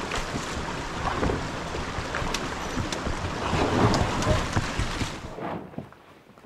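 Water splashing and sloshing as people wade through a shallow creek, dragging a loaded canoe over sticks. Wind rumbles on the microphone, and there are scattered knocks of the hull and branches. It cuts off about five and a half seconds in, leaving faint footsteps on gravel.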